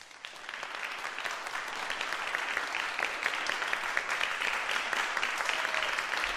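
Pet canary bathing, splashing water with its fluttering wings: a dense, continuous patter of small splashes and droplets that fades in over the first second.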